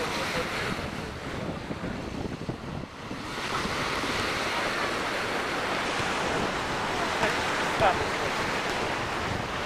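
Wind blowing across the microphone over surf breaking on a sandy beach, a steady rushing noise.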